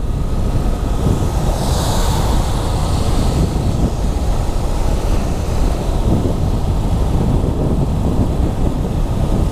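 Wind buffeting the microphone of a motorcycle under way, over steady engine and road rumble. A brief hiss joins in about two seconds in.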